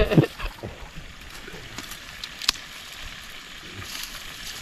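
Tilapia frying in a deep pan of hot oil: a steady sizzling hiss with scattered small pops and one sharper crackle about two and a half seconds in.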